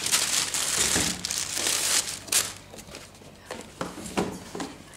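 Tissue paper rustling and crinkling as it is handled, loudest over the first two seconds, then quieter with a few light taps.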